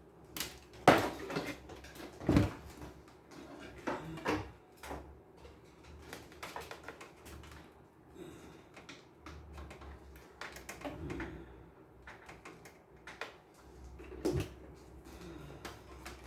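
Scattered clunks and clicks of hands handling a cassette deck and its connections, with a low hum that comes and goes.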